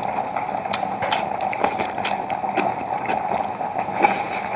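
A pot of seafood stew boiling on a portable gas burner, a steady bubbling hiss. Over it come many short, wet, crunchy clicks of kimchi being chewed close to the microphone.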